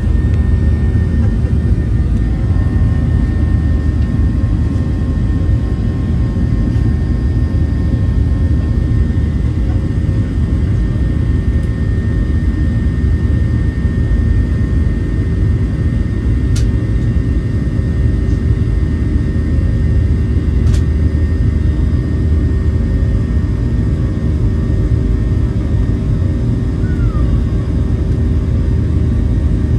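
Steady cabin noise of a Boeing 737-800 jet airliner climbing after takeoff: a low rumble and rush of air with a constant hum, heard from inside the cabin. Two short sharp clicks come about four seconds apart, near the middle.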